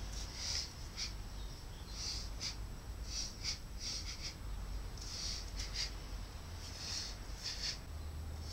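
A karate practitioner's short, sharp breath exhalations, about a dozen at uneven intervals as the techniques of the kata are performed, over a steady low rumble.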